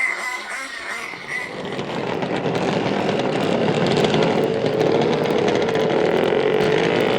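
Small nitro RC engine running at high revs from about a second in, a buzzing pitch that wavers up and down. It is heard through a phone re-recording of TV playback, so it sounds thin.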